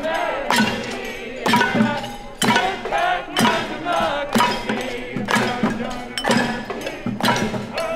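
A crowd singing a song together, keeping time with handclaps and pots and pans struck about once a second.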